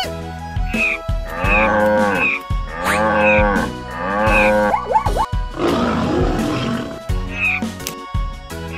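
Cartoon animal-call sound effects over a light background music loop: three drawn-out calls in a row that rise and fall in pitch, then a longer, rougher call near the middle.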